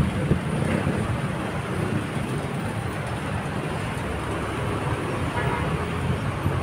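Steady motor vehicle engine and traffic noise, a continuous low rumble with no clear events.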